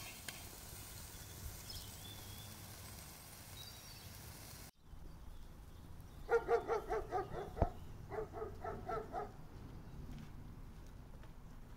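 Faint sizzling of chicken grilling over charcoal, cut off abruptly about five seconds in. Then an animal calls in two quick runs of short, pitched yaps, about six a second, with a single knock between the runs.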